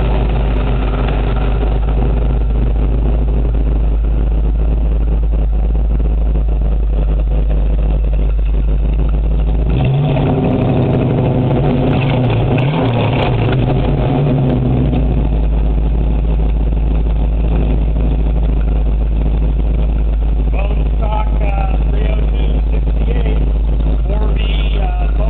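Carbureted muscle car engine idling steadily, revved briefly for a few seconds about ten seconds in, then settling back to idle. Voices talk over it near the end.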